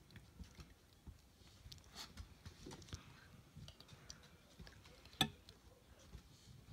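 Faint scattered clicks and taps, with one sharper click about five seconds in, from a newly hatched chick scrabbling over eggs and shell fragments on a towel and bumping against the eggs.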